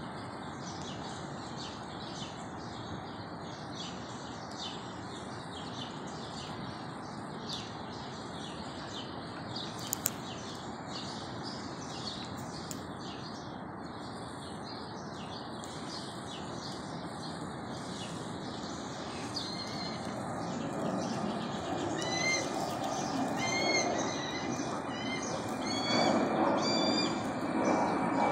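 Small birds chirping over a constant background hum, with two sharp clicks about ten seconds in. From about twenty seconds on, a run of short, evenly repeated rising calls joins in, and the background grows louder toward the end.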